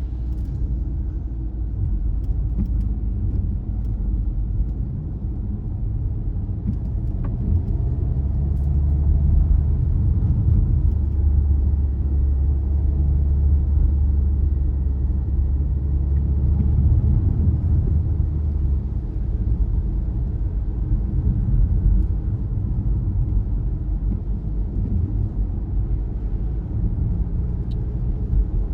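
Car driving along a road: a steady low rumble of engine and tyre noise, swelling a little for several seconds in the middle.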